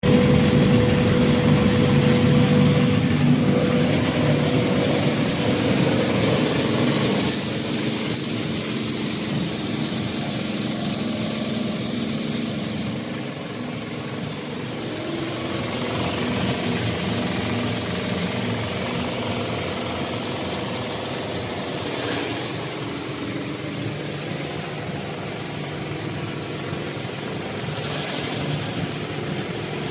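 Metal deburring and chamfering sanding machine running, with a steady motor hum under a harsh high grinding hiss of abrasive working metal. The hiss is strongest for the first dozen or so seconds, then the level drops and the machine runs on more quietly.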